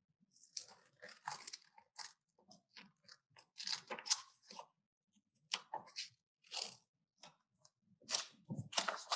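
Scissors snipping through patterned paper, short crisp cuts coming in irregular runs with brief pauses between them.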